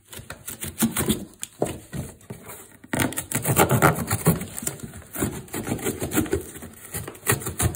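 Cardboard being sawn with the serrated fish scaler blade of a Victorinox Swiss Army knife: a rapid run of scratchy rasping and crackling clicks, with a brief break about three seconds in.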